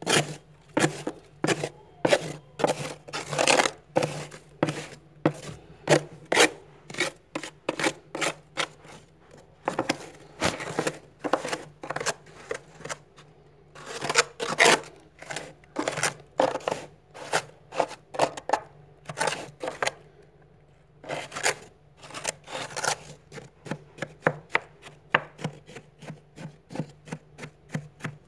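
A plastic card scraping thick, soft frost off the inside wall of a freezer in quick repeated strokes, about two or three a second, with brief pauses between runs.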